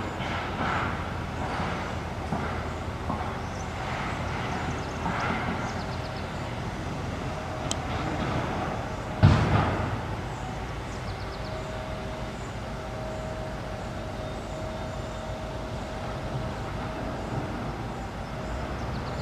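Steady low outdoor rumble of vehicles or machinery, with one sharp loud knock about nine seconds in and a faint steady hum through the second half.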